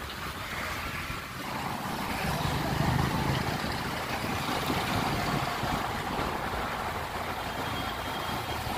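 Road traffic heard from a moving motorbike: a steady hum of engines and tyres with wind on the microphone, and a lower rumble swelling about two to three seconds in.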